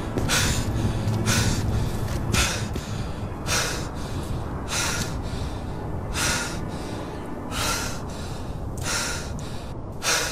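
A man breathing hard and fast, with sharp, noisy breaths coming about once a second over a low rumble: he is winded from sword fighting.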